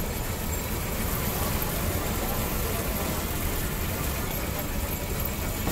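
Motor-driven sugarcane juice press running steadily: its chain-driven steel rollers crush a bundle of cane with a low, even hum.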